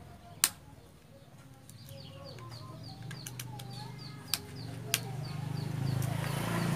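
Sharp clicks of a screwdriver working the wire terminals of a jet pump's pressure switch: one loud click about half a second in and two more past the middle. Chickens cluck and a bird chirps about twice a second in the background, and a low hum swells near the end.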